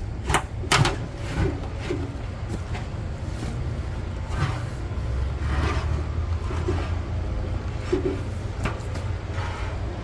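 A heavy tractor tire being wrestled off its steel rim by hand: rubber scraping and rubbing against the rim, with two sharp knocks about a second in and scattered scuffs after.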